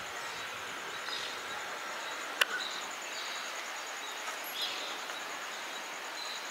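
Outdoor ambience of insects and birds: a steady hiss under a high, evenly pulsing insect trill and a few short bird chirps. A single sharp click about two and a half seconds in.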